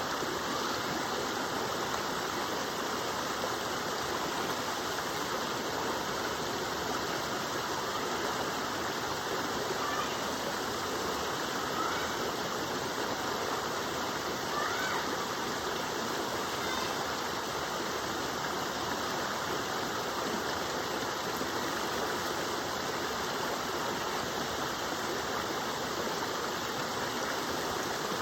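Waterfall: a steady rush of falling water that holds an even level throughout.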